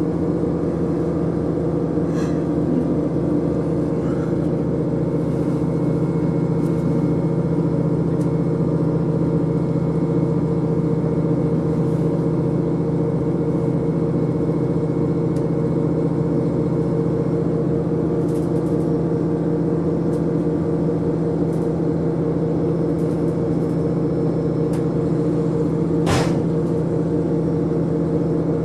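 Ride noise inside a KiHa 40 diesel railcar at about 38 km/h: the diesel engine's steady drone over the rumble of wheels on rail, with a single sharp click near the end.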